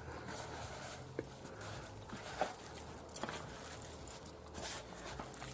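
Hands rustling paper and then kneading raw minced meat in a bowl: soft squelching with a few sharp clicks.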